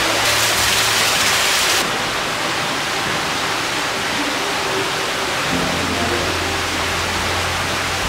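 Steady rush of water echoing in a limestone cave, brighter and a little louder for the first two seconds, then dropping suddenly to a slightly duller rush.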